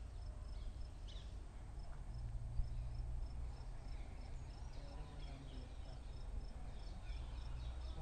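An insect chirping steadily in short high chirps, about three a second, over a steady low rumble.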